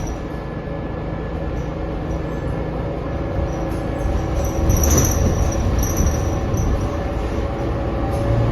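The cabin of a 2019 New Flyer XD40 diesel city bus under way: a steady low drone with a constant whine. Intermittent high squeaks and a sharp click come about five seconds in. The rider calls the bus's sound "INSANE", not normal for this bus.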